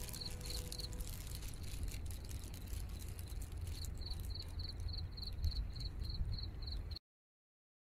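An insect chirping in a high, even pulse about three to four times a second, breaking off for a few seconds in the middle, over a steady low rumble. The sound cuts off suddenly about seven seconds in.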